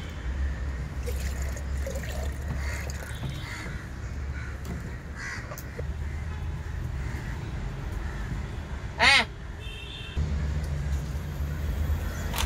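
Crows cawing on and off, with one loud, close caw about nine seconds in, over a low steady hum and a few higher bird chirps.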